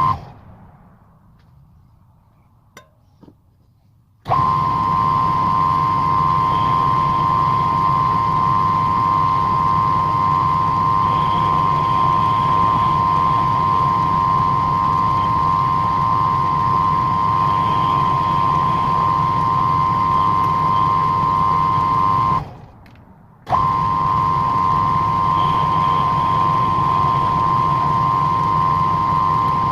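Electric power tool motor running at a steady speed with a constant high whine. It starts abruptly about four seconds in, stops for about a second past the two-thirds mark, then runs again.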